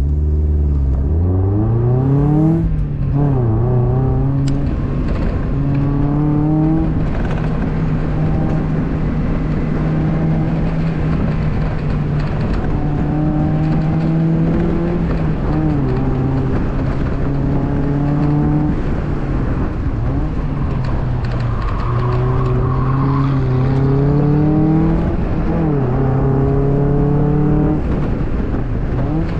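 2002 Mazda Miata's 1.8-litre four-cylinder engine pulling hard through an autocross run. The revs climb steeply at the launch, hold steady for long stretches, then fall and climb again several times through shifts and corners.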